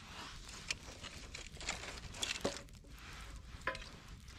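Wood fire of split logs and small twigs crackling in a fire grill, with scattered sharp pops and snaps over a low steady rush of flame.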